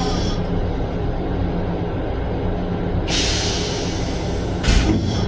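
Flush cycle of a railcar's stainless-steel toilet: a hiss of rinse water from about 3 to 4 seconds, then a short rush with a low thump near the end. A steady low rumble from the train runs underneath.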